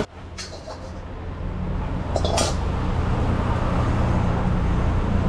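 Steel kitchen utensils clinking a few times, about half a second and two seconds in, over a steady low rumble that builds during the first couple of seconds.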